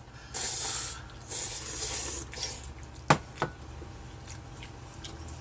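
Chapagetti noodles slurped loudly from chopsticks in two long pulls, then two sharp clicks of tableware a little after three seconds in.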